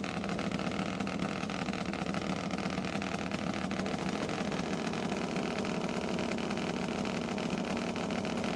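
Top fuel drag motorcycle engines idling steadily on the start line while staged for a run. The dominant bike is a big V-twin.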